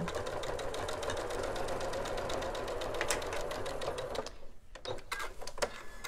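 Janome sewing machine stitching steadily through layered fabric for about four seconds, then stopping abruptly, followed by a couple of light clicks.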